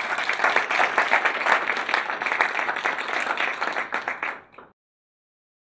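Audience applauding, many hands clapping together. The applause stops abruptly near the end.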